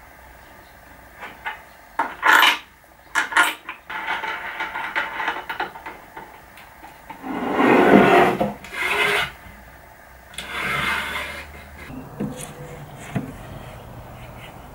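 Wooden parts of a homemade jigsaw circle-cutting jig being handled: the slotted arm scraping and rubbing against the wooden base in several bursts, loudest about eight seconds in, with a few sharp clicks and light knocks.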